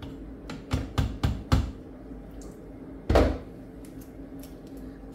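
Electric pressure cooker's metal lid being lifted off: a quick run of light clicks and knocks, then one louder clunk a little after three seconds as the lid is put down.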